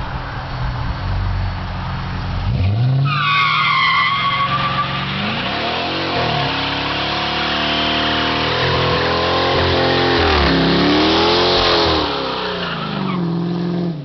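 2008 Dodge Charger R/T's 5.7 HEMI V8, through an SLP Loudmouth exhaust, idling. About three seconds in it revs hard and the rear tyres break loose with a sharp squeal. The tyres then spin in a long smoky hiss as the engine revs rise and fall for about ten seconds, fading near the end as the car pulls away.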